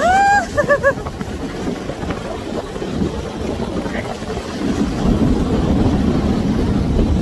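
Snow tubes sliding down a packed-snow tubing run: a steady low rumble of the tubes over the snow, mixed with wind on the microphone. Right at the start a rider gives one rising cry and then three quick laughs.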